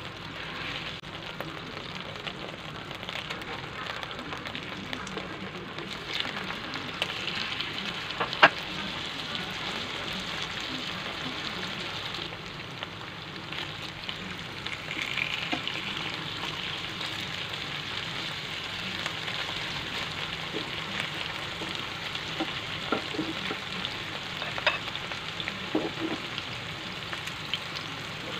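Lemongrass-marinated pork loin slices sizzling steadily in hot oil in a non-stick frying pan, on their second frying. A few sharp clicks cut through the sizzle, one loud about eight seconds in.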